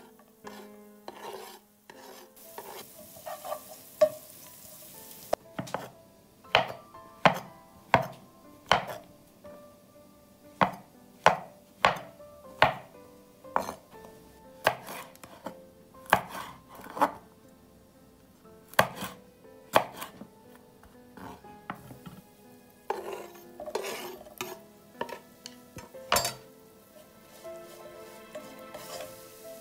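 Kitchen knife chopping mushrooms on a wooden cutting board: a long run of sharp strikes, one or two a second. Near the end, a wooden spoon knocking and stirring in a frying pan.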